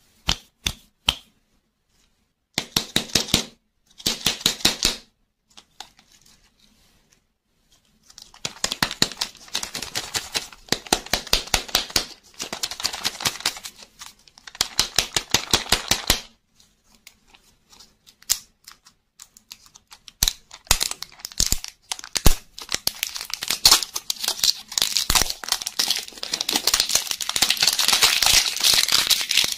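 Printed plastic wrapper crinkling and tearing as it is peeled by hand off a round toy-lollipop ball, in bursts of rapid crackling with sharp clicks. The crackling comes twice briefly a few seconds in, then in longer runs from about eight seconds on, densest near the end.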